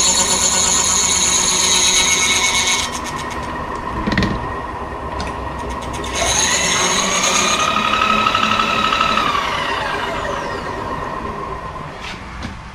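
Milling machine cutting a gear tooth into a brazed-up gear held in a dividing head, with a steady high-pitched machining whine. The cutting noise stops about three seconds in and is followed by a knock. Machine noise starts again about six seconds in with a whine that rises in pitch and later falls away and fades.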